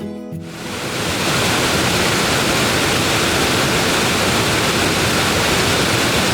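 A waterfall rushing: a loud, steady noise of falling water that comes in about half a second in and fades out near the end, with background music faint underneath.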